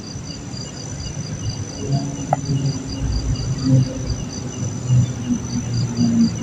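Crickets chirping at night: a steady high trill with a pulsed chirp repeating about five times a second in short runs, over a low rumble. A single short tick comes about two seconds in.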